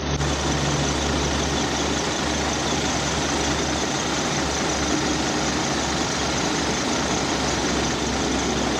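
Rear-mounted diesel engine of a coach bus idling steadily.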